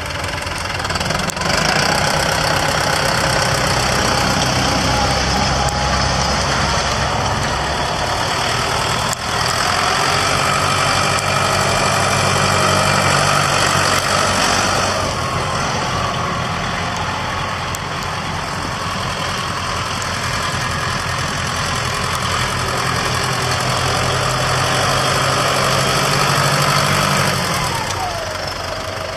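New Holland TS110 tractor's diesel engine running steadily as the tractor drives across snow; the engine note eases near the end.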